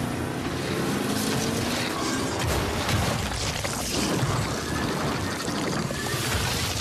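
Loud, continuous rushing and rumbling sound effects from a pickup truck commercial, with a brief rising tone at the start.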